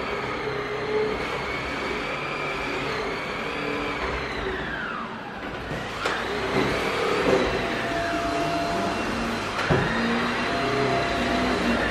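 A household electric motor whining up to speed after a click, winding down with a falling whine about five seconds in, then switched on again twice, each time with a click and a rising whine.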